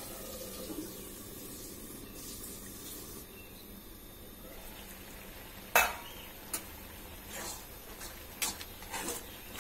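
Vegetables frying in an iron kadai, with a steady low sizzle. About six seconds in comes a sharp metal clank, then a spatula knocks and scrapes against the pan about once a second as the vegetables are stirred.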